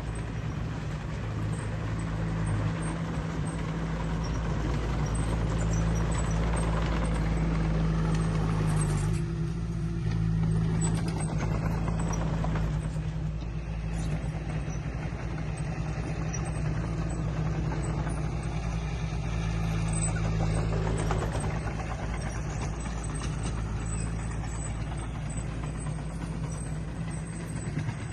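Diesel engine of heavy earthmoving machinery running with a steady low drone; the engine note shifts about nine seconds in.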